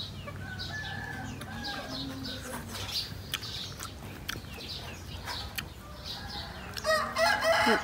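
Chickens clucking in the yard, short scattered calls, with a louder burst of calling near the end.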